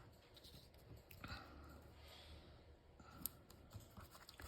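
Near silence with faint clicks and soft rustles from handling paper craft pieces and foam adhesive; one sharper click comes about three seconds in.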